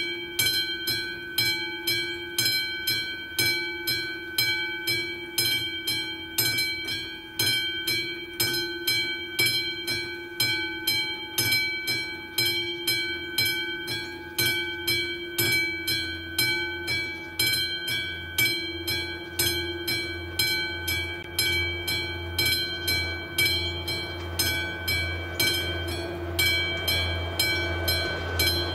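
Level-crossing warning bell ringing in steady, evenly spaced strokes while the crossing's lights flash for an approaching train. From about halfway on, a low rumble of the oncoming train builds up under the bell.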